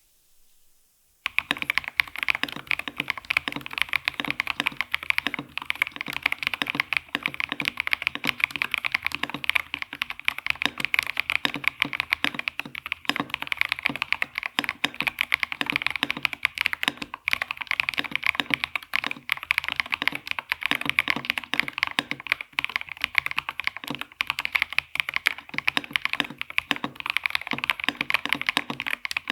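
Redragon Star Blade K707 Pro mechanical keyboard with Mint Mambo switches being typed on fast and continuously, starting about a second in.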